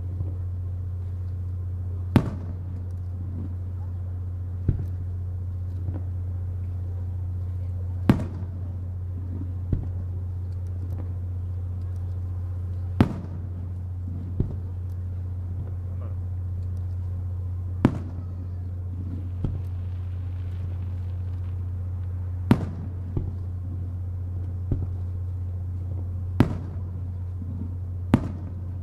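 Japanese aerial fireworks shells going off: about a dozen single sharp bangs a few seconds apart, with a steady low hum underneath.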